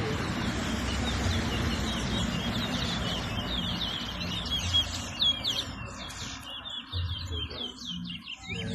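Towa towa (chestnut-bellied seed finch) singing in a bird-song race: a fast warbling run of short, repeated down-slurred whistles, getting louder about halfway through, over a noisy background hiss.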